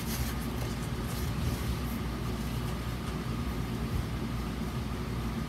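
Steady low hum and faint background hiss, room tone with no distinct handling sounds.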